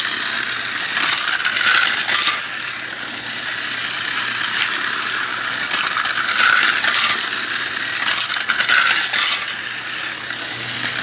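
Two small battery-powered toy cars running laps on flexible plastic track: a steady whirring rattle of their tiny motors and wheels clicking over the jointed track links, swelling and fading as the cars come nearer and go farther.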